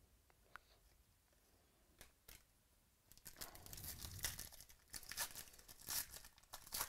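Foil wrapper of a trading-card pack being torn open and crinkled, a dense run of crackling tears starting about three seconds in. Before that there are only a few faint clicks.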